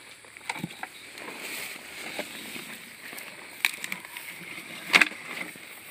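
Footsteps and rustling through wet grass and mud, with a few sharp knocks, the loudest about five seconds in.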